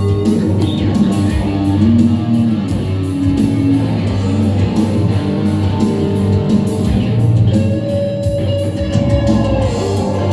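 Live heavy rock band playing an instrumental passage led by electric guitar, with bass and busy drums underneath.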